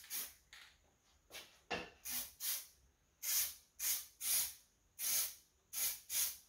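Aerosol can of engine enamel spraying in about ten short hissing bursts, a little over one a second, as a colour coat goes onto an engine block.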